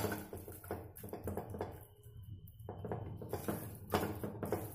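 Hands rubbing a wet spice paste into whole scored fish in a clear bowl: soft, irregular squishing and rubbing with light taps and clicks against the bowl.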